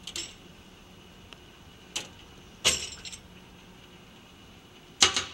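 Steel lathe collets clinking and rattling against each other in a metal drawer tray as the drawer is moved: four short jangling clatters, the loudest near the end.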